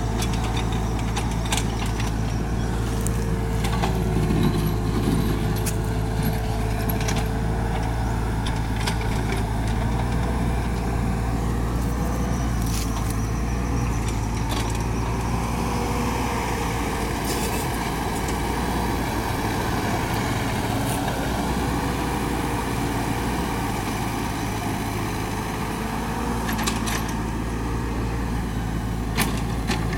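Mini excavator's diesel engine running steadily with a wavering hydraulic whine, and scattered clanks and scrapes as the bucket prys at hard laterite soil.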